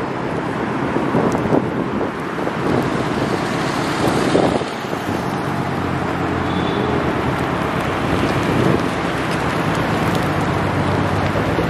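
Cars driving slowly past one after another, engines and exhausts rumbling, with short louder surges of throttle about a second in and again around four seconds. From about halfway on a steady low engine note carries as a car passes close.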